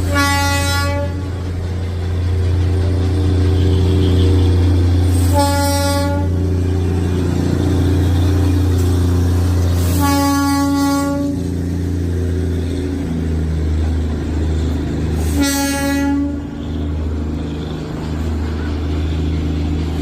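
Darjeeling Himalayan Railway toy train sounding its horn four times, about five seconds apart, each blast about a second long, over a steady low rumble of the locomotive running.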